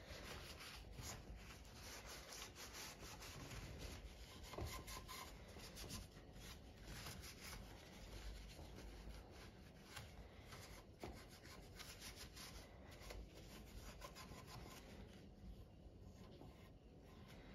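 Faint rubbing of hands and a cloth against an opened sewing machine's metal and plastic housing around its drive belts, with scattered light clicks of handling.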